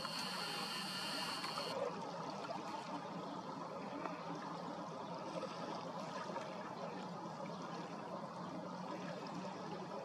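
Steady, even outdoor background noise with no distinct events. A thin, high steady tone sounds over it for about the first two seconds, then stops.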